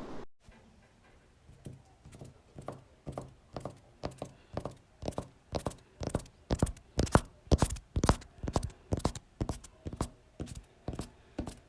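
A steady rhythm of knocking thuds, often in close pairs about twice a second, growing louder toward the middle and easing a little near the end.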